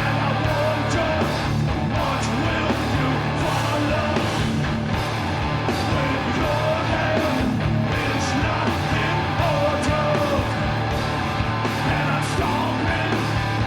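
Loud, heavy rock music: distorted electric guitars and a pounding rhythm section, with shouted singing over it.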